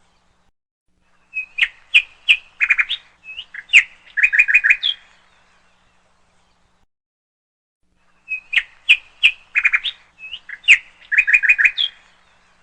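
Bird chirping in two bursts of quick chirps, each about four seconds long, with silence between; the second burst repeats the first.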